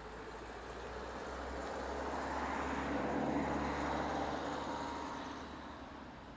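A road vehicle passing by: a broad rushing noise that swells to its loudest about three seconds in, then fades away.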